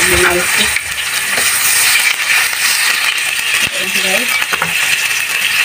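Marinated chicken sizzling in a little hot oil in a nonstick pan: a steady hiss with small crackling pops as the oil bubbles around the meat.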